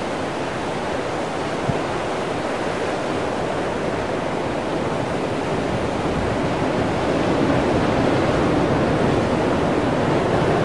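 Ocean surf washing and breaking over a rocky shoreline, a steady rushing noise that grows a little louder about seven seconds in.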